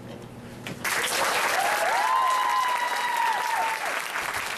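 Audience applauding, starting about a second in, with a few voices cheering over it.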